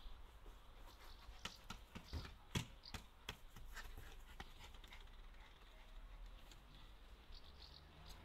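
Faint outdoor quiet with a few soft knocks and taps in the first few seconds, the loudest about two and a half seconds in.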